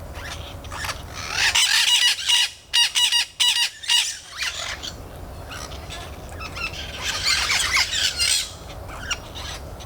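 A flock of parrots squawking, the racket of scared birds: a long spell of loud, harsh calls starting about a second in, with a fast run of short squawks in the middle, and another spell of calls around seven seconds in.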